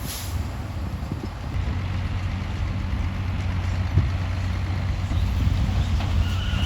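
Komatsu D68E crawler bulldozer's diesel engine running steadily, with irregular clanking and knocking from its steel tracks and blade working rock.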